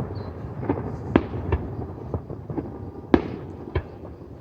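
Fireworks display: aerial shells bursting in an irregular series of sharp bangs, the loudest about a second in and about three seconds in, over a continuous rumble of further explosions.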